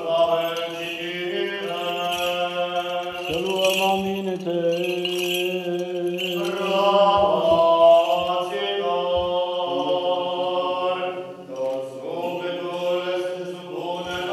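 Orthodox liturgical chant sung during the church service: a slow melody of long held notes over a steady low note, with a short break about eleven seconds in.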